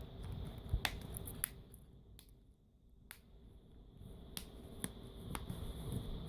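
Samsung Galaxy Tab 3's plastic back cover being snapped back on, its clips catching in about seven sharp clicks spread across several seconds.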